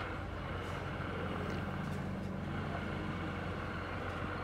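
A steady low hum over a constant background noise, with no distinct knocks or clicks.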